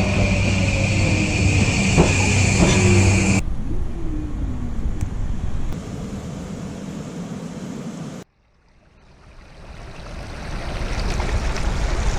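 Train running noise in three edited shots: first a loud steady hum with a slowly falling whine, then a quieter rumble, then a rising rumble that cuts off abruptly.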